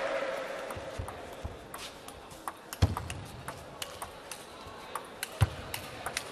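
A table tennis rally: the celluloid ball clicks sharply off the table and the rackets in a quick back-and-forth, with two heavier thuds among the clicks. Crowd applause dies away at the start.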